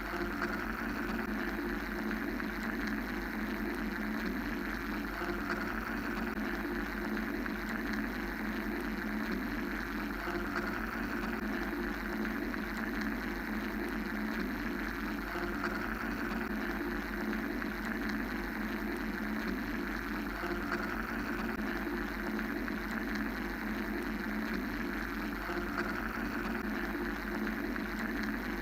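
Steady mechanical white noise: an even machine-like drone with a deep low hum and a midrange hiss that slowly swells and eases every few seconds.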